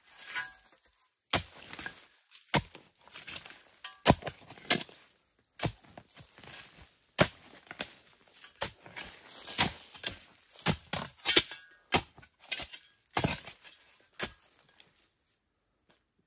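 A long pole struck repeatedly down into earth while digging out a burrow: irregular sharp impacts, about one or two a second, which stop near the end.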